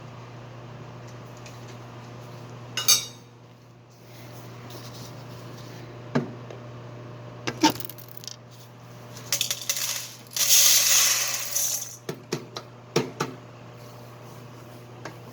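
Metal parts of a coffee grinder being handled during cleaning: scattered clinks and knocks, with a rushing noise lasting about a second and a half about two-thirds of the way through, over a steady low hum.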